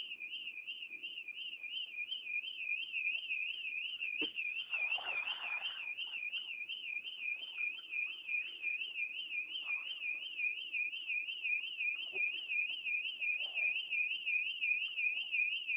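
An electronic alarm sounding a steady high warble, its pitch rising and falling about three times a second without a break.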